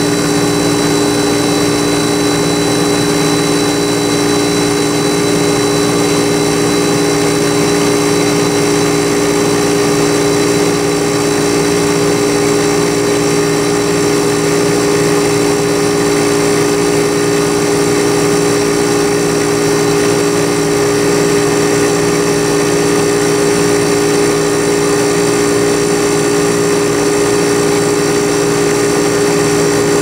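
Compressor of a vintage Westinghouse AC051M7Q7 5,000 BTU window air conditioner running steadily, a loud even hum that does not change; the owner thinks it is a reciprocating compressor.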